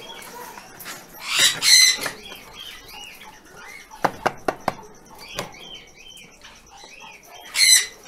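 Harsh parrot squawks: two loud calls about a second and a half in and another just before the end, with quieter chirps between. Around four to five and a half seconds in come a few sharp clicks as the small metal latch on a wooden nest box is worked open.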